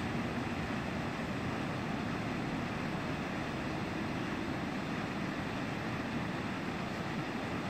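Steady rushing of seawater gushing out of outlets in the harbour quay wall into slush-covered water, an even noise with no separate knocks or bangs.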